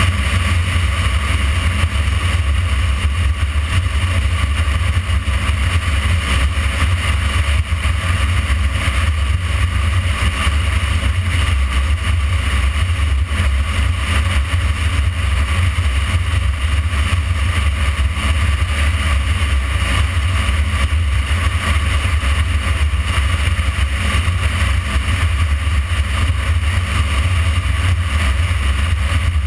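Motorcycle riding at a steady speed: a loud, steady low rumble of wind buffeting the bike-mounted microphone, mixed with engine and tyre noise.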